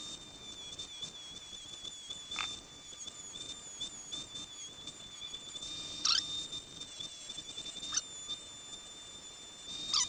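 Dremel 4200 rotary tool running at high speed with a steady high whine that wavers slightly as a small bit grinds the steel edge of a digging tool. There are brief scraping squeals about two and a half, six and eight seconds in and again near the end.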